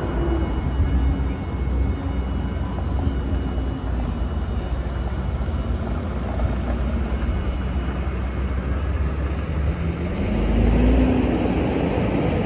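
Nikola hydrogen fuel-cell electric semi truck running, a steady hum that rises in pitch about ten seconds in, over a heavy low rumble.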